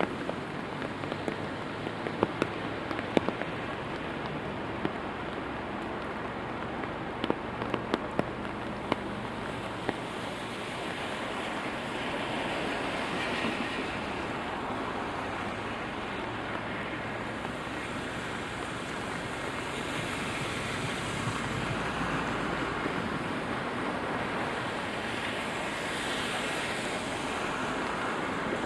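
Steady rain falling on a city street, with sharp drip ticks over the first nine seconds or so. Swells of tyre hiss from traffic on the wet road rise and fall several times through the second half.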